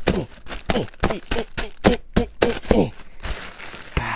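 A rapid run of jabs at plastic air-cushion packing pillows, about three a second. Each is a sharp tap followed by a short falling squeak of the stretched plastic, as the pillows are stabbed to burst them.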